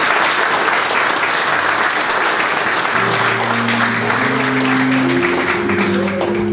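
Congregation applauding. Instrumental music with held notes and a bass line comes in about halfway through beneath the clapping.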